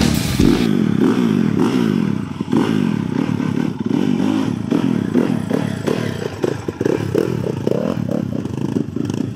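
Small dirt bike's engine revving up and down again and again while ridden at low speed, its pitch repeatedly rising and falling.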